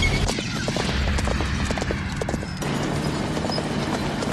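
Horse galloping, a quick run of hoofbeats that thins out about two-thirds of the way through, over a steady low rumble.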